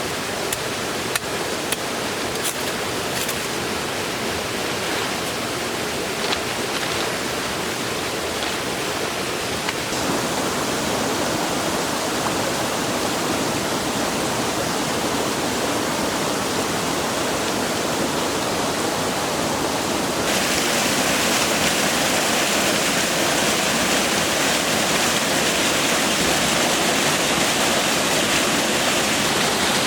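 Steady rushing noise like running water, with a few sharp clicks in the first few seconds. The noise changes abruptly about ten seconds in and again about twenty seconds in, becoming louder and brighter.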